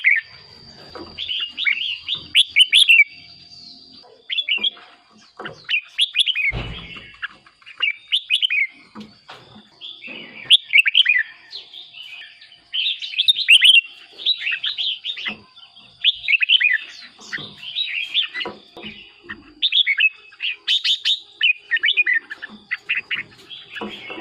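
Red-whiskered bulbuls singing: short phrases of quick, bright warbling notes come every second or two, with brief pauses between them.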